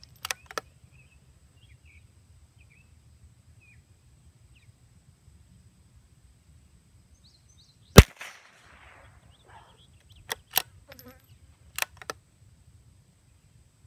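A single shot from an accurized CZ 455 bolt-action .22 LR rifle about eight seconds in, the loudest sound, with a brief tail after it. Two sharp clicks come just after the start, and four more come over the two seconds after the shot, the bolt being worked.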